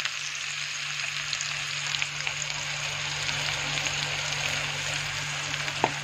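Chopped onions sizzling and crackling in hot oil with cumin seeds in a steel kadai, a steady frying hiss with light crackles, over a steady low hum.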